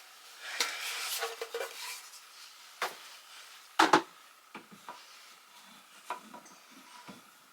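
Shelving being handled and fitted into place: scraping and rattling, then two sharp knocks about four seconds in, followed by a few lighter clicks.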